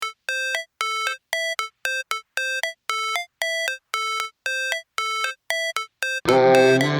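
Background music: a short synth note repeated about twice a second, then the full track with bass comes in near the end.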